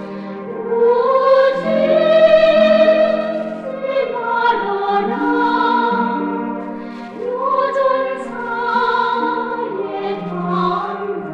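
Choir singing long, held phrases over an instrumental accompaniment.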